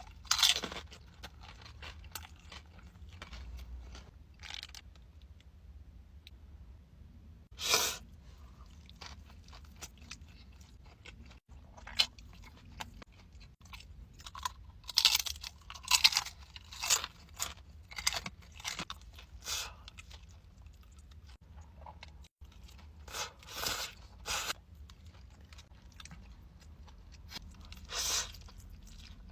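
Crisp fried crab rangoons being bitten and chewed, with irregular sharp crunches separated by pauses and coming thickest in the middle and near the end.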